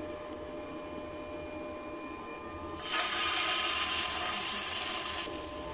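A marinated chicken drumstick is laid into hot oil in a frying pan and starts to sizzle about three seconds in. The hiss lasts a couple of seconds and then stops short.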